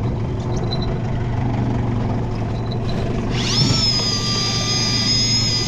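A small boat's motor running steadily with a low hum. About three seconds in, a high, steady whine of several tones starts on top of it and holds.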